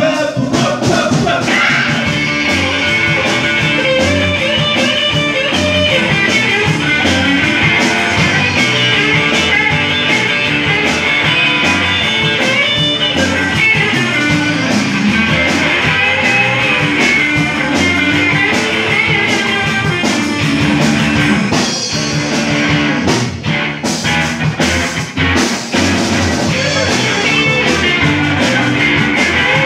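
Live rock-and-roll band playing: electric guitars, electric bass and drum kit. About three-quarters of the way through, the band drops out briefly several times, leaving a few sharp accented hits, then plays on.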